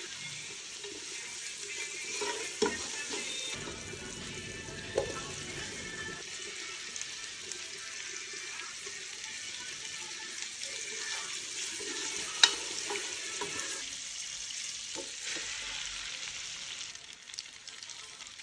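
Food sizzling in hot oil in a pan while it is stirred, with a few sharp clicks of a utensil against the pan, one much louder than the rest. The sizzle quietens near the end.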